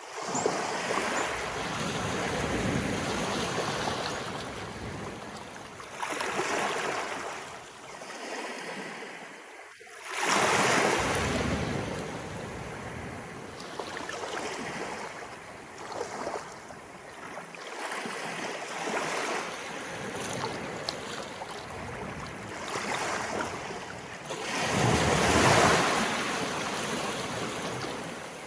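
Sea waves of an incoming tide rolling in and washing ashore: a steady rush of water that swells and falls back in several surges, the biggest about ten seconds in and again near the end, with splashes.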